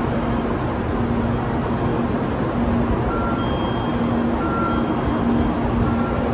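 N700-series Shinkansen train running slowly alongside the platform as it pulls in: a steady rumble of wheels and running gear with a low hum. A short high beep sounds three times in the second half.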